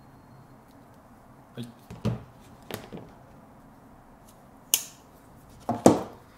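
Cable and tools handled on a work board while a VVR 1.6 mm two-core cable is measured for sheath stripping: a few light clicks and taps, then a sharper click nearly five seconds in and the loudest pair of knocks just before the end.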